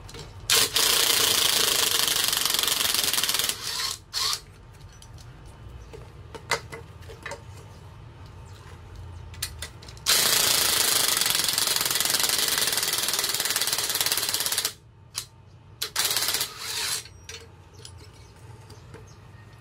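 Impact wrench hammering on the threaded rod of a screw-type coil spring compressor, turning it to compress or release a strut's coil spring. It runs in two long bursts, one about half a second in lasting some three seconds and another about ten seconds in lasting four to five seconds, with a few short blips and clicks of handling between.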